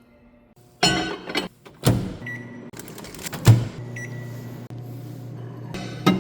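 Microwave oven being loaded and started: a few clatters, a short beep, then a sharp click about halfway through, after which the oven runs with a steady low hum.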